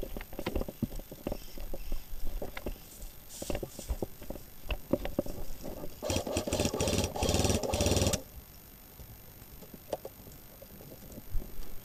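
Scattered footsteps and knocks of movement, then about six seconds in a roughly two-second full-auto burst from an airsoft electric gun, a rapid run of shots over the gearbox motor's hum that cuts off suddenly.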